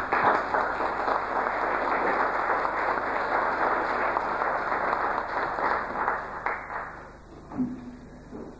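Audience applauding in a hall, dense steady clapping that tails off about six and a half seconds in.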